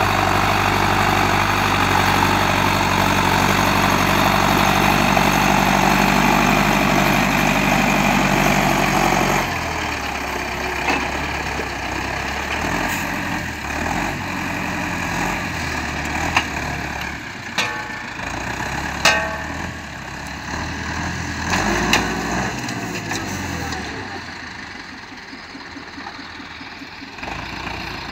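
Zetor 7745 tractor's four-cylinder diesel engine pulling a plough under load, running steadily. About a third of the way in it drops to a quieter, uneven run, with several sharp knocks as the tractor turns with the plough lifted.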